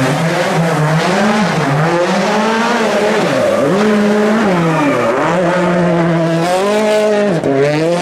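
Ford Fiesta WRC 2 rally car's turbocharged four-cylinder engine revving hard and dropping back through gear changes as it takes a hairpin close by. The pitch falls steeply twice, about three and a half and five seconds in, and climbs again toward the end.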